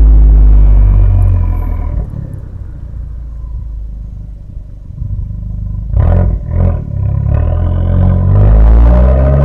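Fiat 500 Abarth's 1.4-litre turbocharged four-cylinder exhaust on the move, recorded close up with wind on the microphone and distortion. It is loud at first and drops off for a few seconds, then a few sharp bursts come about six seconds in, and the pitch rises as the car accelerates again near the end.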